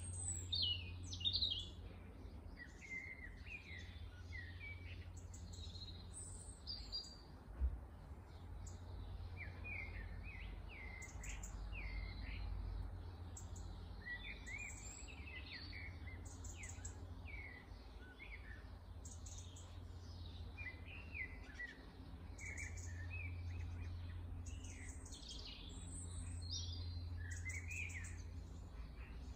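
Small garden songbirds chirping and calling, many short overlapping notes and trills, over a steady low rumble. A single brief low bump comes about eight seconds in.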